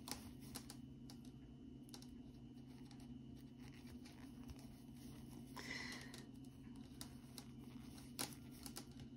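Quiet, scattered clicks and scratchy rustles of circular knitting needle tips and yarn being handled while binding off stitches, with a brief scratchier rustle about six seconds in, over a low steady hum.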